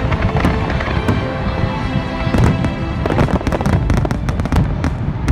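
Fireworks going off in a rapid string of bangs and crackles that grows denser about three seconds in, with music underneath.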